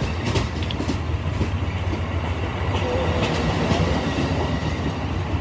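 Amtrak passenger train's cars rolling past at close range as the train pulls away: a steady low rumble with scattered clicks of the wheels over the rail joints.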